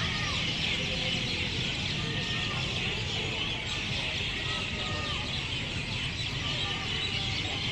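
Many birds chirping and calling at once in a dense, unbroken chatter, with a steady low rumble underneath.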